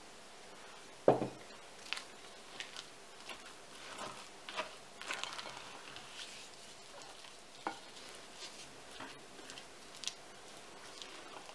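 Wooden spoon stirring stiff cake batter in a glass bowl: irregular scrapes and soft knocks against the glass as flour is folded in. A single dull thump about a second in is the loudest sound.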